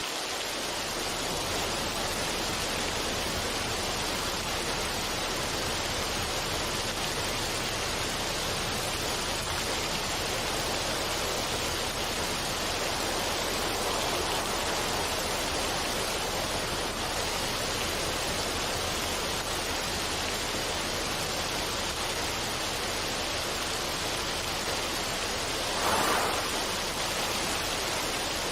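Steady rushing water, an even hiss with a brief swell near the end.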